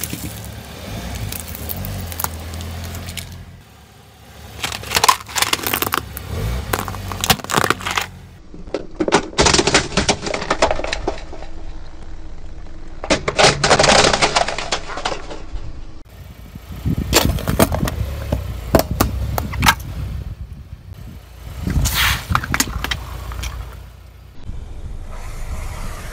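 A car's tyre slowly rolling over and crushing small objects, plastic toys and wrapped sweets, which crack, snap and crunch in about seven separate spells with short lulls between, over a low engine hum at the start.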